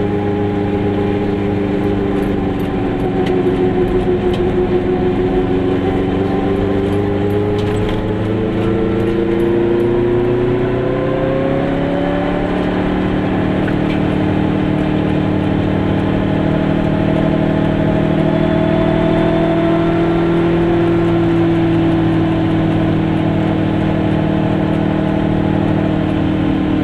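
Goggomobil's small air-cooled two-stroke twin engine running under way, heard from inside the car. Its note climbs steadily for about ten seconds as it pulls up through the revs, then holds fairly level with a slight rise and fall later on.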